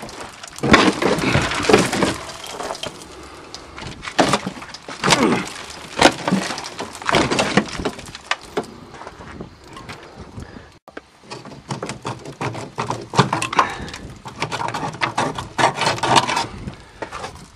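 Rusty metal being cut and worked loose under a car: irregular sharp cracks, clanks and scraping from the strap holding a Toyota Cressida's gas tank, with a few short creaks of bending metal.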